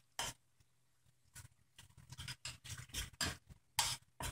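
Metal spoon scraping and knocking against a small stainless steel saucepan while stirring a frying tomato-paste sauce. After a short pause near the start, a run of quick, irregular strokes.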